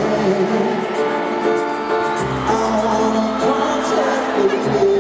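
Live pop ballad performance: a male lead vocal over band accompaniment, heard through the stadium's PA from within the crowd. The bass moves to a new note about two seconds in and again near the end.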